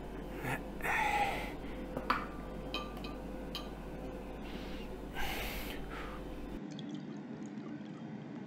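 Low steady hum of a jet's cabin in flight, with short breaths and a few light clicks and knocks. Near the end, whisky is poured from a decanter into a glass tumbler.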